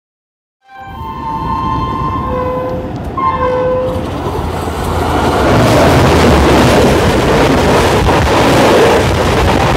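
Train horn sounding twice, a longer blast then a shorter one, followed by the loud rush and rattle of an oncoming express train crossing at speed on the adjacent track, heard from the open window of a moving train.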